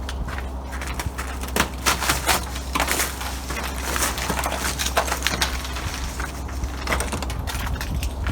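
Crunching and cracking of ice and packed snow: a dense, irregular run of sharp crackles over a steady low hum.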